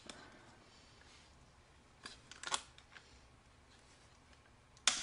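Light clicks and taps of a metal rivet and backup washer being pressed into a hard plastic kneepad frame: a small cluster about two seconds in and a sharper click near the end.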